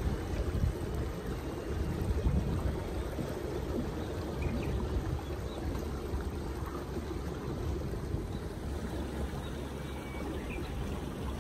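Steady rush of water washing against a small boat's hull, with wind rumbling on the microphone.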